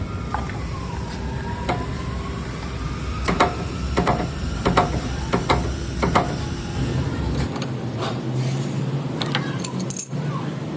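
Irregular metallic clicks and knocks over a steady low hum, typical of a worn steering rack inner tie rod knocking in a car's front end. The low hum drops away about three quarters of the way through.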